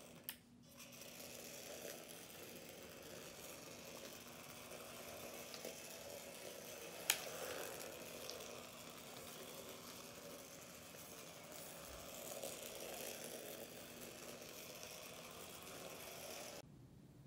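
Faint steady whir of a micro 1:64-scale RC car's small electric drive motor and gears as it drives, with one sharp click about seven seconds in.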